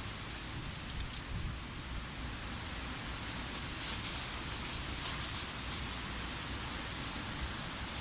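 Strong wind rushing through trees, the leaves rustling with louder brief surges about a second in and again around four to six seconds in, over a low rumble of wind buffeting the microphone.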